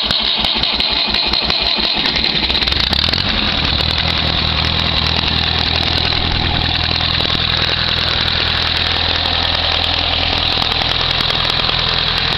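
Old Fiat crawler tractor's diesel engine running. It is uneven, with a low pulsing beat, for about the first two seconds, then settles into a steady idle.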